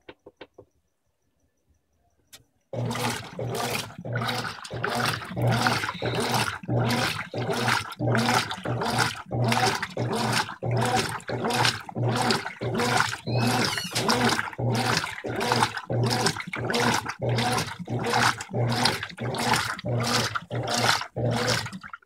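Brastemp 15 kg top-load washing machine agitating a load: the motor hums and the agitator swishes water and suds back and forth in regular strokes, about two a second. It starts about three seconds in.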